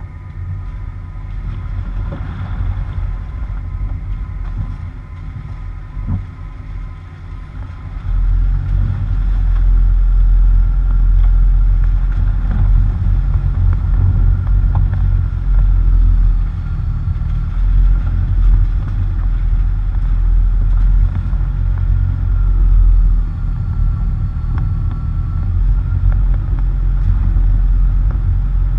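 Low rumble of wind buffeting and tyre noise from a quiet vehicle driving a muddy dirt road, picked up by a camera on its front bumper. It gets louder about eight seconds in, with a faint steady high whine above it.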